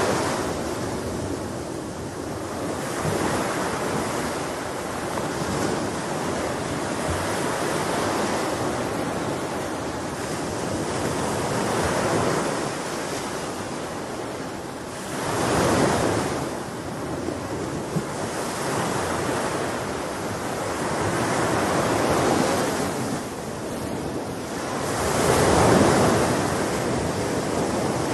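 Sea waves washing onto a shore: a continuous rushing hiss that swells and ebbs every few seconds, with stronger surges just past the middle and near the end.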